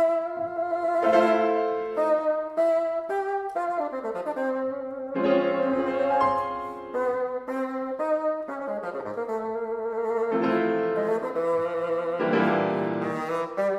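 Bassoon and piano playing classical music together: the bassoon plays a melody of held and moving notes with vibrato over a piano accompaniment.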